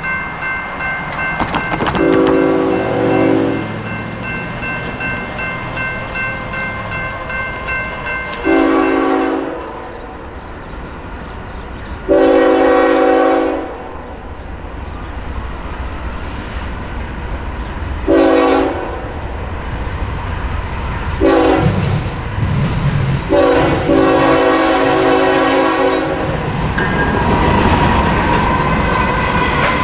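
Approaching freight locomotive horn, a GE ES44DC's, sounding a series of blasts at a grade crossing: mostly long blasts with two short ones, the last one long, as the train nears. A crossing bell rings through the first part. Near the end the locomotives pass close with a loud rumble of engines and wheels.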